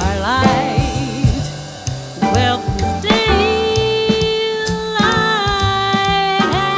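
Jazz band playing a song: bass line, drums, piano and guitar, with a long melody note held from about three seconds in until just before the end.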